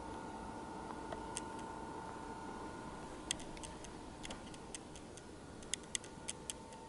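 BenQ W1070 projector's cooling fan running steadily in Eco and Cinema mode, its quietest setting: a low hiss with a faint steady whine. A run of light, irregular clicks comes in over it in the second half.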